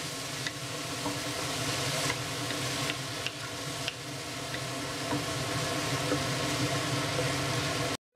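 Tomatoes and scrambled egg sizzling in a hot wok as a wooden spatula stirs them, with scattered clicks and scrapes of the spatula on the wok. The sizzling cuts off suddenly near the end.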